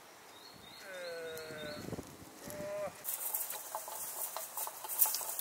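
A sheep bleats twice: a long call about a second in and a shorter one soon after. Then footsteps and rustling in dry leaves and twigs underfoot take over, louder than the bleats.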